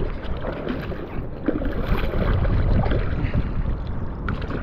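Wind buffeting the microphone, with scattered small scrapes and knocks of a knife cleaning a fish on the inflatable kayak's hull.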